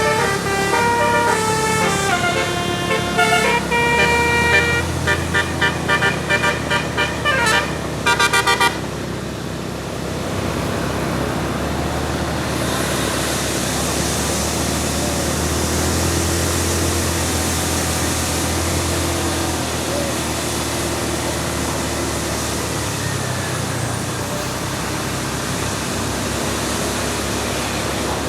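Bus "telolet basuri" musical air horn playing a melody of stepped notes for about nine seconds, finishing with a run of quick staccato toots. After that, a vehicle engine runs with road noise and a steady hiss.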